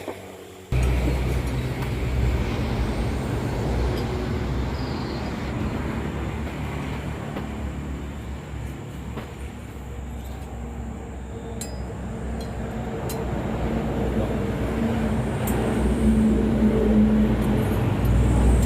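A steady, heavy motor rumble, like a large vehicle engine running, that starts abruptly about a second in and grows a little louder near the end.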